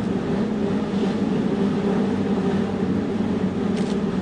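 A steady low mechanical hum with a constant drone, like an engine running.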